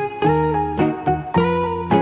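Background music of plucked guitar notes over a bass line, several notes a second, each starting sharply and fading.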